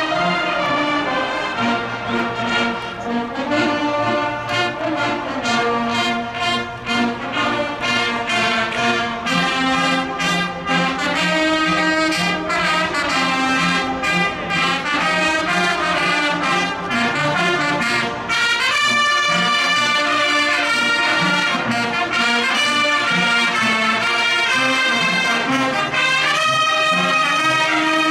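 A Bersaglieri fanfare, an Italian military brass band, playing a march at full volume, with many brass instruments sounding together in changing chords.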